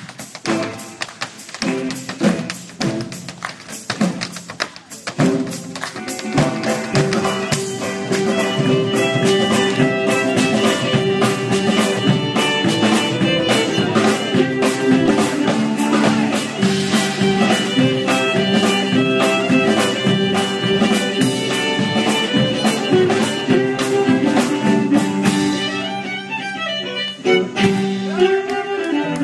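Live band music: sparse percussion strikes at first, then from about six seconds in a fuller tune of sustained melody lines over a steady beat.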